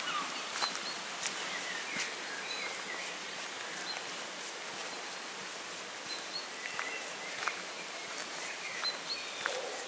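Small woodland birds chirping, with short high calls scattered throughout, over a steady outdoor hiss. A few sharp clicks of footsteps on a dirt path are heard.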